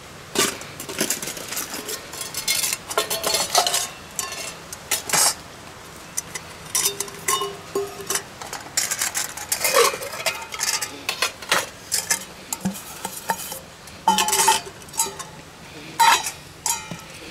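Stainless steel mess kit bowls, cups and pot clinking and knocking as they are handled, nested and set down on a wooden table: a run of short metallic clinks, some with a brief ring.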